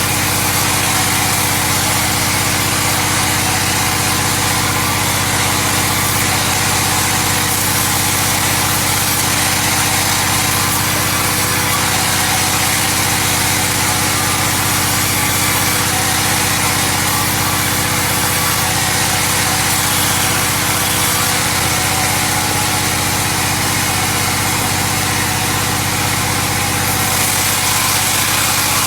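An engine running at a steady speed, unchanging in pitch and loudness throughout.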